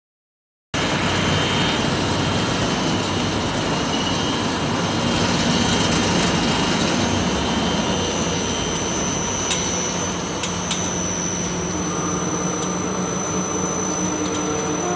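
Tortilla production line machinery running: a loud, steady mechanical noise. A high steady whine sets in about eight seconds in, and a few sharp clicks come around ten seconds.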